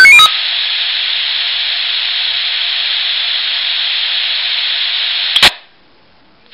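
Swissphone Quattro XL+ pager speaker ending a rising stepped alarm beep, then giving a steady hiss. The hiss stops with a sharp click about five and a half seconds in, and the speaker goes quiet.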